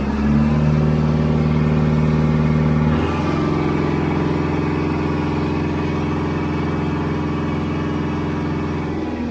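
Kubota MU4501 tractor's diesel engine running steadily at raised revs. Its note changes slightly about three seconds in.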